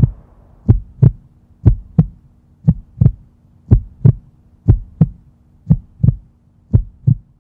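Heartbeat sound effect: deep paired thumps, lub-dub, repeating about once a second over a faint low hum.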